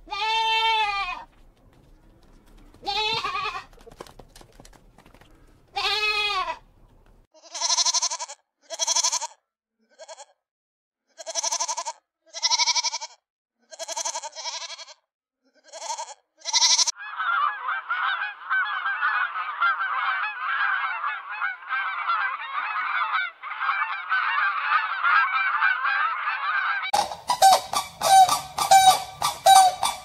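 Farm animals calling: a few drawn-out calls that rise and fall in pitch in the first seven seconds, then a run of short calls about once a second. Then about ten seconds of many animals calling at once, and near the end a fast, rhythmic chatter.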